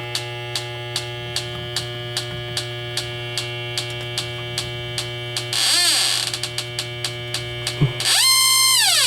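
Electronic background music: held synth chords over an even beat about two and a half times a second, with two swooping synth sweeps, one a little past the middle and a longer one near the end.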